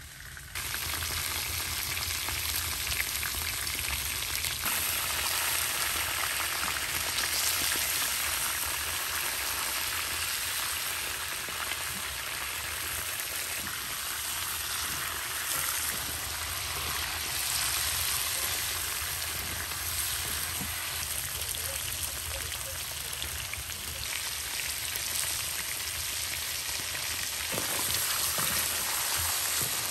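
Food frying in a hot pan: a steady, dense sizzle that gets louder about half a second in and then holds.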